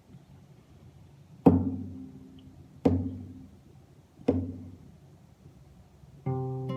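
Three evenly spaced knocks, about a second and a half apart, each with a short ringing decay, like a count-in; near the end an acoustic guitar chord is strummed and rings on.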